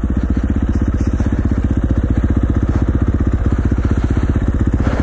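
Dirt bike engine running steadily at low revs, a fast, even chugging pulse with no revving up or down.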